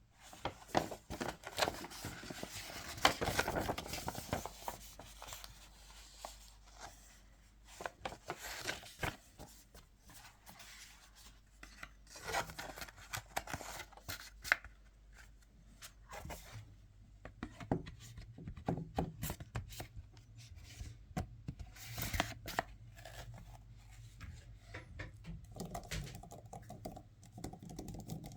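Packaging handled by hand during an unboxing: irregular rubbing, rustling and tearing, with scattered taps and clicks. A faint low hum comes in about halfway through.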